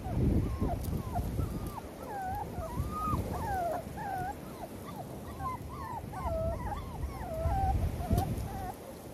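A litter of six-week-old XL pitbull puppies whimpering and whining together: many short high cries that bend up and down, several a second and overlapping, over a low rumble.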